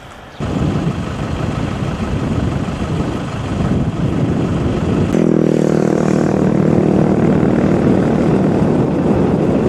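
Wind buffeting the microphone as a dense rumble. About five seconds in, a steady, evenly pitched motor drone joins it and holds.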